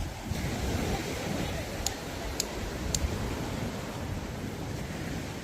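Sea surf and wind on the microphone, a steady rushing noise, with three short high clicks about two to three seconds in.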